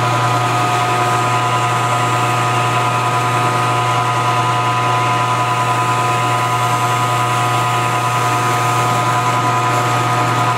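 Milling machine spindle running steadily while a drill bit bores a pin hole through an AR-15 front sight block. It is a constant low hum with several steady higher tones, unchanging throughout.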